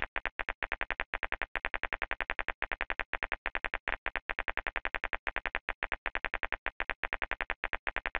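Synthesized laser-zapping sound effect from an interactive tattoo-removal game, firing as the laser handpiece is dragged over the ink: a rapid string of short electronic beeps, about seven a second, with a few brief breaks.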